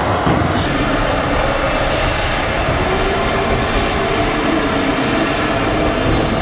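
Steady mechanical noise of small combat robots' electric drive motors as they drive and shove each other across a plywood arena, with one pushed against the steel side rail near the end.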